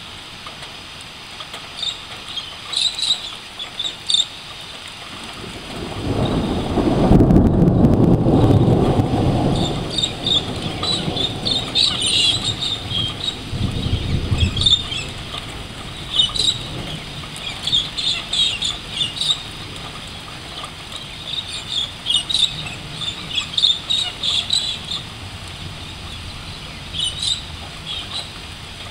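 Thunder rumbling, swelling in about six seconds in, loudest around eight seconds, with a second weaker roll near fourteen seconds. Birds chirp in short bursts throughout.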